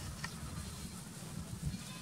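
Goats bleating briefly near the start, over a low steady rumble.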